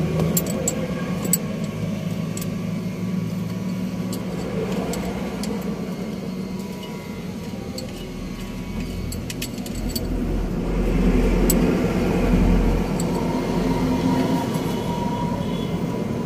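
Road traffic running by: a steady engine hum, with a deeper rumble of a vehicle swelling past around the middle. Scattered light clicks sound over it.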